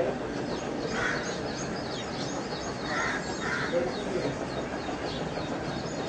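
Outdoor birdsong: many short, high chirps falling in pitch, with louder harsh calls about a second in and twice in quick succession around three seconds in, over a steady background hiss.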